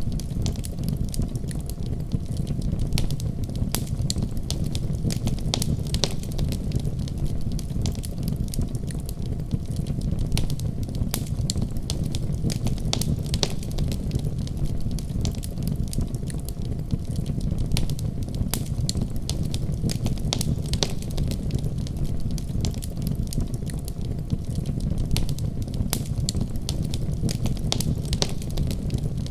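Wood fire burning in a fireplace: a steady low rush of flames with many sharp, irregular crackles and pops.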